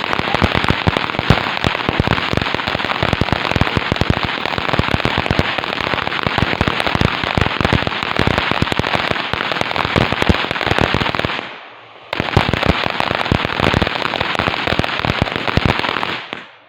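A ground firework going off in a long run of rapid, dense crackling pops. There is a brief lull about twelve seconds in, then it carries on before stopping near the end.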